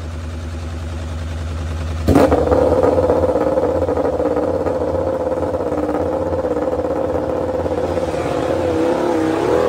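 MotoGP race bike engine catching suddenly about two seconds in, after a low hum, then running at a steady high idle. Near the end its pitch wavers up and down with small throttle blips.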